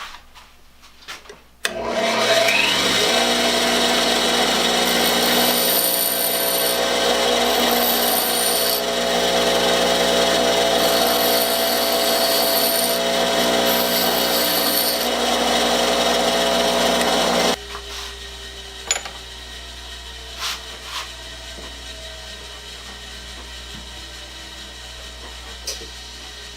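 Power tool motor starting up and running steadily for about sixteen seconds, then switched off, its hum slowly falling in pitch as it winds down, with a few light clicks.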